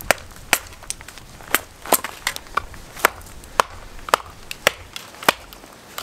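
Wooden baton striking the spine of a CRKT Seismic folding knife, driving the blade down through a very hard split piece of wood: a dozen or so sharp knocks at about two a second.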